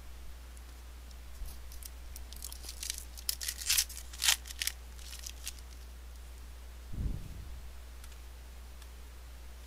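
A baseball card pack's wrapper crinkling and crackling as it is torn open and crumpled by hand, a quick run of sharp rustles lasting a few seconds and loudest near the middle. A single soft low thump follows about seven seconds in.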